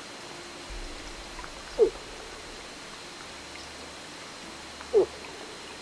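Two short, loud bull-moose grunts about three seconds apart, each falling in pitch.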